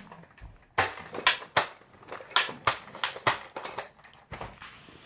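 Nerf Lawbringer blaster being worked and fired: a run of about nine sharp plastic clicks and snaps, two or three a second.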